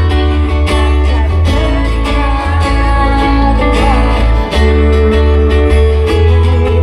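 Live band music: guitar over a heavy, steady bass.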